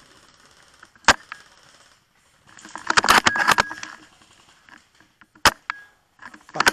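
Tokyo Marui VSR-10 G-Spec spring-powered bolt-action airsoft sniper rifle firing. There is a sharp shot about a second in, then a rattle of clicks around three seconds as the bolt is worked to re-cock, and a second shot later on, each with a short metallic ring from the spring.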